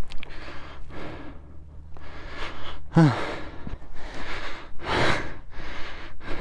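A man breathing hard, with puffs, gasps and a grunt about three seconds in, from the exertion of heaving a motorcycle stuck in sand. A low steady hum underneath stops at the grunt.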